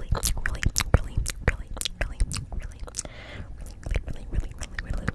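ASMR mouth sounds made right at a microphone: a quick, irregular run of wet clicks and pops, with a soft breathy hiss about three seconds in.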